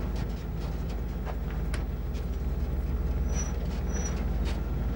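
Large vehicle's engine running at idle with a steady low rumble, while a few sharp clicks and knocks come from the cab door and from someone climbing into the cab. Two short high beeps sound a little after the middle.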